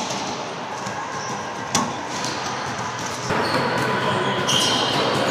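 A racquetball rally: the hollow rubber ball smacks off racquet strings and the court walls, each hit echoing around the enclosed court, with one loud smack just under two seconds in. Brief sneaker squeaks on the hardwood floor come near the end.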